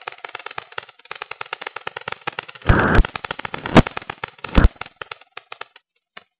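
Rapid crackling and clicking picked up by a cheap keychain camera's microphone riding on a flying RC electric glider, as wind and airframe vibration buffet it. Loud thumps break through about three seconds in and twice more shortly after.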